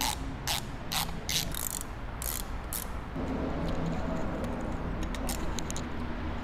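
Ratchet wrench with a 10 mm socket clicking in short strokes about half a second apart while bolts on a rotary vane pump's end plate are run in. From about three seconds in, the clicks give way to a softer, steadier mechanical rattle.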